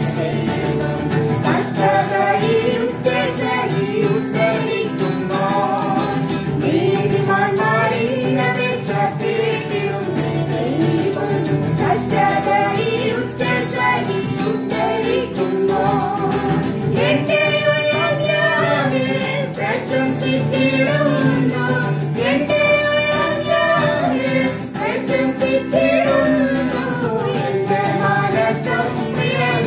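Women's and men's voices singing a Malayalam Christian song together, accompanied by an acoustic guitar.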